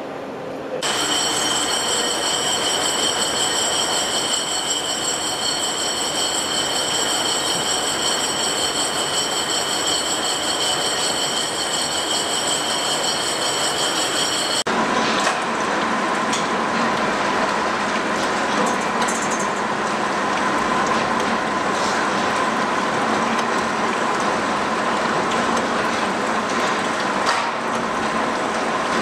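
Machine-shop cutting noise in two parts: first a lathe turning a bronze part, with steady hiss under several steady high whines; about halfway through the sound changes abruptly to a gear-cutting machine running, a steady rushing noise with a lower steady whine and a few light ticks.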